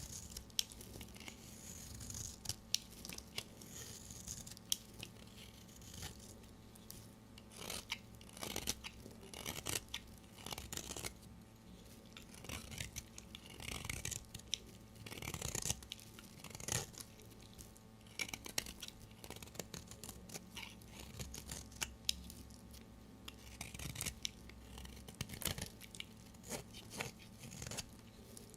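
A blade cutting through bars of dry soap: a run of irregular crisp crunches, snaps and short scraping cuts.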